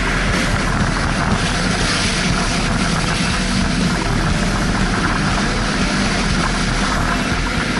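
Off-road 4x4's engine running steadily as it wades through a flooded river ford, with a loud steady rush of water splashing against the front of the vehicle.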